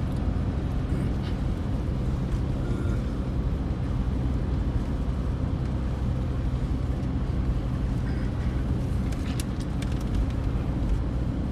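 Steady low engine and road rumble inside the cabin of a moving vehicle, with a few faint clicks near the end.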